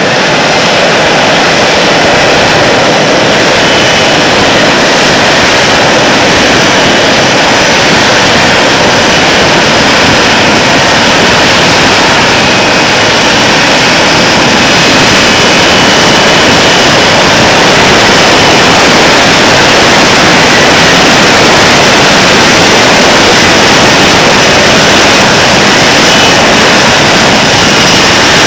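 F-35B's single jet engine and lift fan running loud and steady at high power as the jet hovers for a vertical landing.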